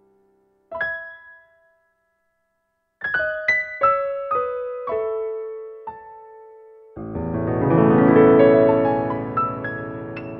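Solo piano improvisation: a single high note that dies away, a pause, then a descending run of single notes. About seven seconds in comes a loud, full chord that is held and slowly fades.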